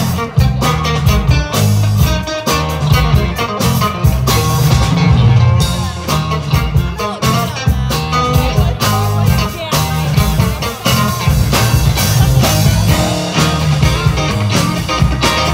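Live rock band playing, with electric guitars, electric bass and a drum kit keeping a steady beat.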